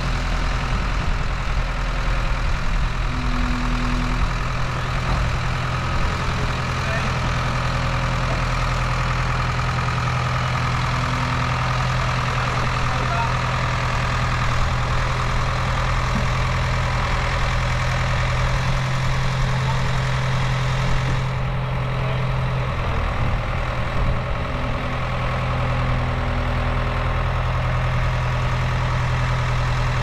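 Heavy diesel engine running steadily at low revs, an even low drone with no revving.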